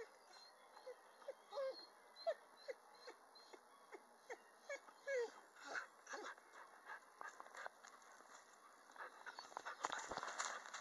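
Irish Wolfhound puppy whimpering: a quick run of short, high whines in the first half, the distressed whining of a puppy that has lost sight of her owner. Then come rustling and crunching steps on a gravel trail, with a knock of handling near the end.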